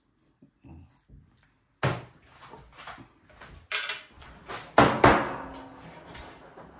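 Kitchen clatter on a stainless-steel counter as a metal baking tray is cleared away and a cutting board is set down: a series of sharp knocks, the loudest two close together past the middle, ringing briefly.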